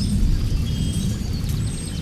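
Low rolling rumble of distant thunder, slowly easing off, with birds whistling thin high notes and short chirps over it.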